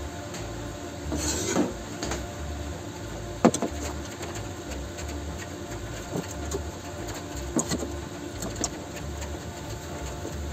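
Hollow-steel frame pieces and a marking square being handled on a workbench: a short scrape, then one sharp knock, then a few light clicks, over a steady low hum.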